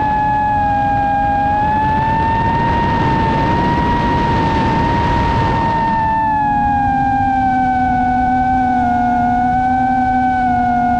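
Quadcopter's electric motors and propellers whining at a steady, slowly wavering pitch, with wind rushing over the onboard camera's microphone. About six seconds in the wind noise eases and the whine settles a little lower as the throttle comes back.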